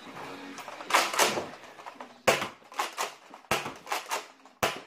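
Nerf foam-dart blasters being primed and fired: a quick, uneven series of about ten sharp clacks and thumps.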